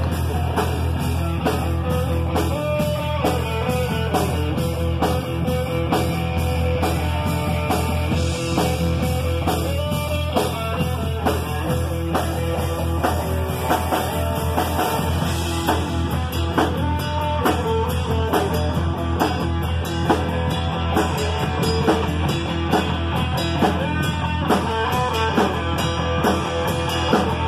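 Live rock band playing: electric guitar and electric bass over a drum kit keeping a steady beat.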